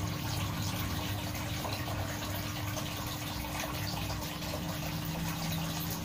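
Steady bubbling and running water in a large aquarium, from the aeration and filter return stirring the surface, with a steady low hum underneath.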